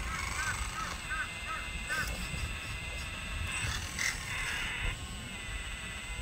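Small electric motors and gears of an RC scale Volvo excavator whining steadily as its boom and arm move, a little louder for a second or so past the middle. Over the first two seconds a bird gives quick repeated short chirps.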